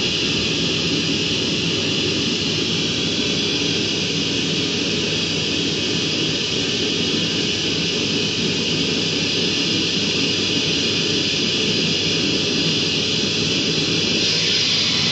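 Automatic dog brush's electric motor running with a steady whir, its sound shifting slightly near the end.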